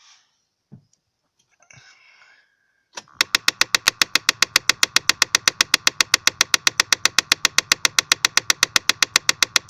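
Rapid, even clicking from a small part of the heating/ventilation system under the dashboard of a 2008 Mazda 2, behind the removed glovebox. It starts about three seconds in, when the ignition is switched on with the engine off, and runs at about ten clicks a second over a faint steady hum. The owner takes it for a fault in the heating/ventilation; the same ticking also comes when the air mode is switched from inside to outside air.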